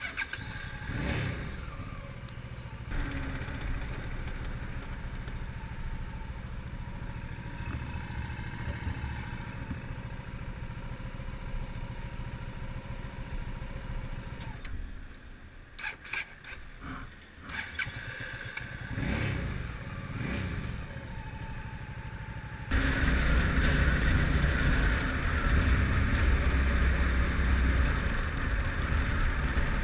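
Motorcycle engine running steadily, with a few brief swells in sound, then markedly louder from about three-quarters of the way in.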